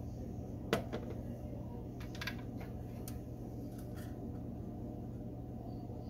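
Steady low hum of a running refrigerator, with a few light clicks and knocks from a glass jar of ice being handled, the first and sharpest about a second in.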